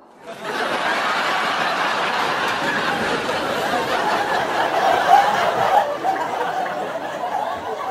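A group of people laughing and chuckling together, like a laugh track, starting suddenly and holding steady before easing off a little near the end.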